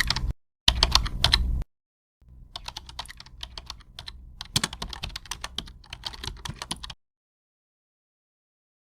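Computer keyboard typing: two short bursts of quick key clicks in the first couple of seconds, then a longer, quieter run of typing lasting about five seconds.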